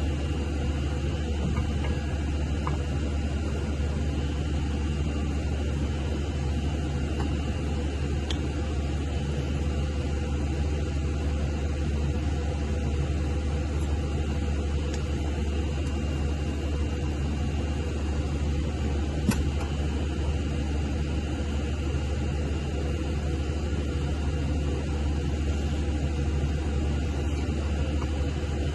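Steady low mechanical hum with a hiss of noise above it, with a single sharp click about two-thirds of the way through.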